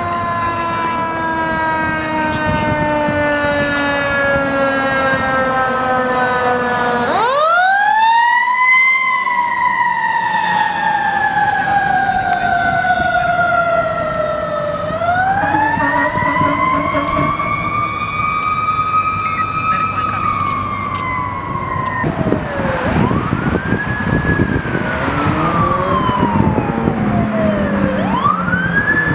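Fire engine sirens on a Code 3 response. A siren falls slowly in pitch, then twice winds sharply up and coasts slowly down, with traffic and engine noise underneath. In the last third, quicker wailing sweeps rise and fall.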